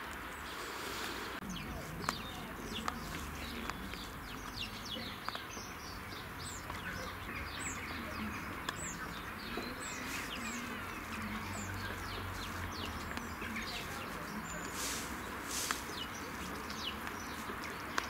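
Small birds chirping, short high falling notes about once a second, over a steady outdoor hiss.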